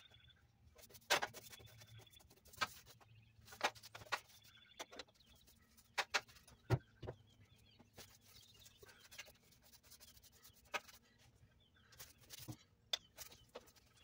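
A 2-inch chip brush dabbing and scraping paint onto a bare steel floor pan: faint, irregular taps and scratchy strokes, with a steady low hum underneath.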